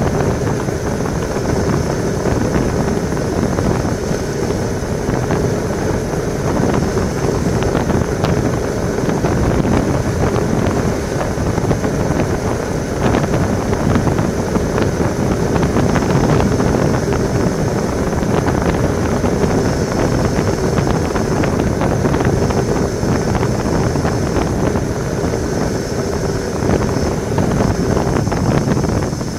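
Steady rush of wind over a bike-mounted camera's microphone during a fast road-bike descent at about 45–53 km/h.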